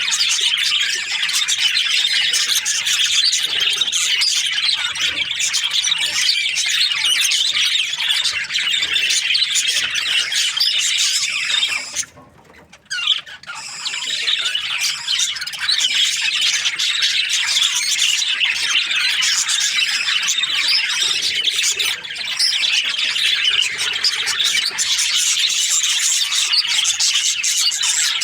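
A group of budgerigars chattering and chirping in dense, overlapping high calls. The sound drops out abruptly for about a second and a half near the middle, then resumes.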